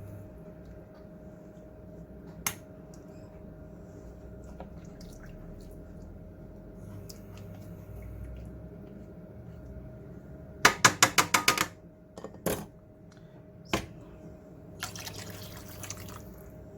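Chicken cooking in water in a pot, a steady liquid bubbling. Part way through, a quick run of about eight sharp clicks is the loudest sound, followed by a couple of single knocks and a short hiss.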